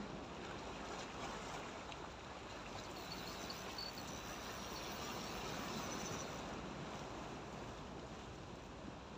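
Sea water washing against a rock breakwater, a steady rushing noise with wind on the microphone.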